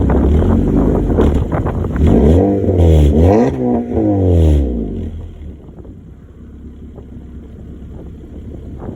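Honda Accord's straight-piped exhaust with the muffler deleted, running loud, then revved up and down a few times between about two and four and a half seconds in before dropping back to a quieter idle. The owner says the pipe has a leak.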